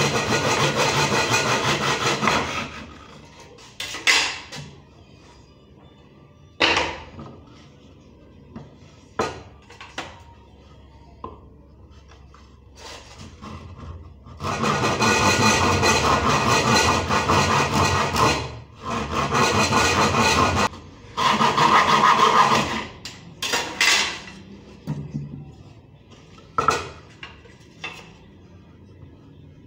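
Hand saw cutting through a wooden board: sawing for the first couple of seconds, then again in three spells from about halfway until a few seconds before the end. In the pause between, a few single knocks as the wood is handled on the stone counter.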